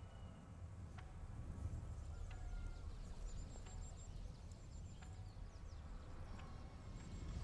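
Faint outdoor ambience of hens foraging: scattered small clicks and rustles, with short high chirps and a steady low rumble underneath.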